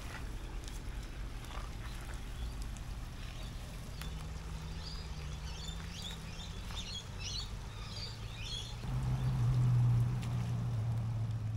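Outdoor ambience with a steady low rumble and birds chirping from about four seconds in; from about nine seconds a louder low drone sets in.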